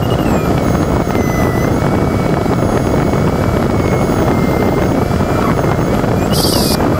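Steady rush of air around the cockpit of an LS4B glider in flight, with the variometer's electronic tone sliding slowly up and down in pitch. A brief high hiss comes near the end.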